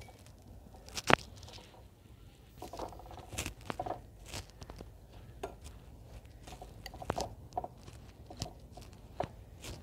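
Boiled potatoes being mashed with a metal wire potato masher in a terracotta plate: irregular squishing and crunching, with sharp clicks where the masher knocks the clay, the sharpest about a second in.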